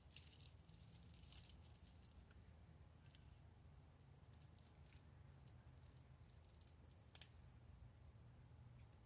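Near silence: a faint low room hum with a few soft clicks and rustles of small objects being handled, the sharpest about seven seconds in.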